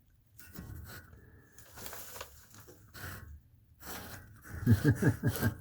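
Crinkling and rustling of foil-faced Reflectix insulation and tape being handled, in short irregular bursts, with a brief vocal murmur near the end.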